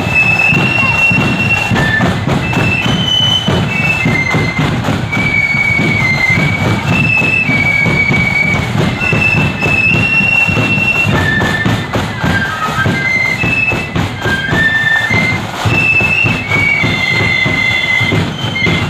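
Marching flute band playing a tune: the flutes carry a high melody of held notes over a steady, heavy drum beat.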